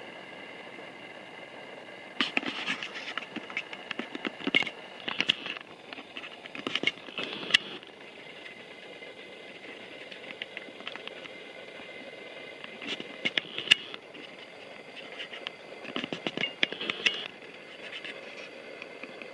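Hitachi Class 803 electric multiple unit running slowly past: a steady high whine under two stretches of irregular clicking and clattering, the first a couple of seconds in and the second past the middle.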